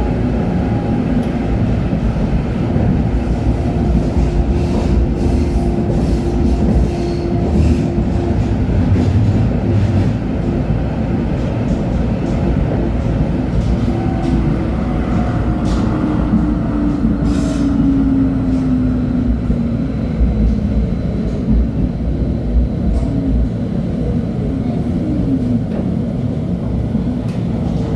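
LHB TW2000 Stadtbahn light-rail car running on track, with a steady rumble of wheels and running gear and a few clicks. A traction-motor whine holds one pitch for a while, then falls in pitch through the middle, and a second falling tone comes near the end.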